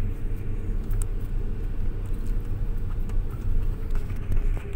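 Car driving along a road, its engine and tyre rumble heard from inside the cabin as a steady low rumble with a faint steady hum.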